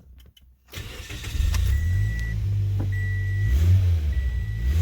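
2008 Toyota Yaris 1.5-litre four-cylinder engine starting after a short crank and settling into a steady idle, with a new front exhaust gasket just fitted between manifold and pipe. A short warning beep repeats about every second.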